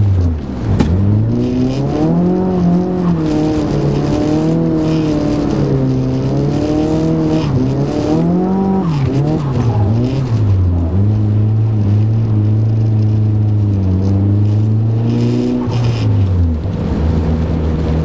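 Car engine driven hard through a run of bends, its revs rising and falling over and over. The pitch drops sharply about half a second in, holds steady for a few seconds past the middle, and drops again near the end.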